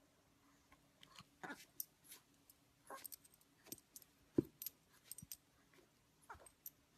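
Faint clinking and jingling of the metal tags on a Yorkshire terrier's collar as the dog moves, paws and head-butts, with a thump about four and a half seconds in.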